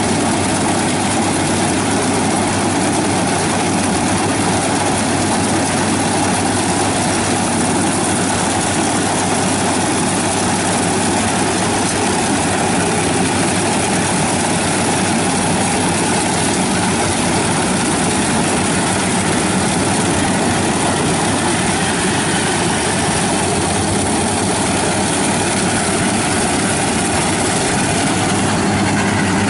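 Yanmar 82 rice combine harvester running steadily while it cuts and threshes rice: a continuous engine drone with the clatter of the threshing machinery.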